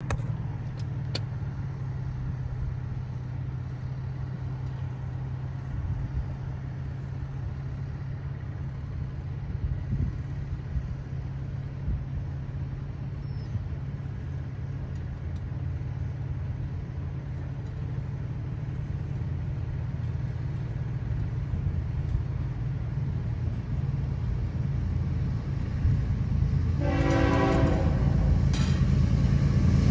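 Locomotive horn sounding for a grade crossing, two long blasts near the end with a short break between them. Under it, a steady low rumble grows louder as the train approaches.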